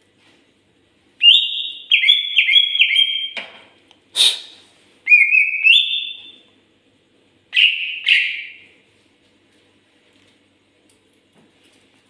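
Caged green leafbird (cucak ijo) singing in loud whistled phrases. A run of quick stepped notes comes first, then a sharp click about four seconds in, a rising stepped whistle, and two harsher notes near eight seconds.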